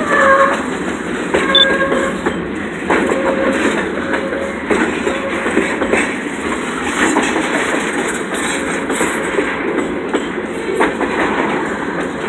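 Freight train cars rolling past at close range: a steady rumble and rattle, with the wheels clicking over the rail joints.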